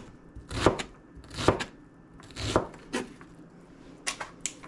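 Chef's knife chopping diced onion on a plastic cutting board: separate knocks of the blade on the board about a second apart, with a few quicker ones near the end.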